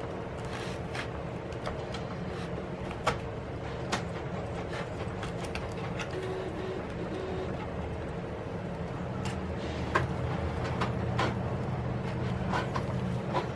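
Irregular small clicks and ticks of plastic opening picks and a prying tool against the iPad's glass and aluminium frame as the glued screen is worked loose, over a steady low hum.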